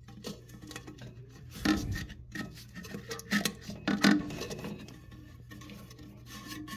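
Hands fitting a new seal onto a Mansfield toilet flush valve: soft rubbing and handling noise, with a few light knocks about two, three and a half and four seconds in.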